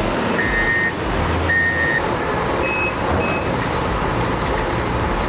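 Heavy machine's reversing alarm beeping about once a second over the steady engine noise. The beeps stop about two seconds in, and two shorter, higher beeps follow.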